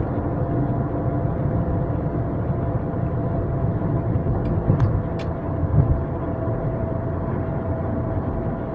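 Steady road and engine noise of a car cruising on a freeway, heard inside the cabin. About five seconds in come a few sharp clicks and two low thumps.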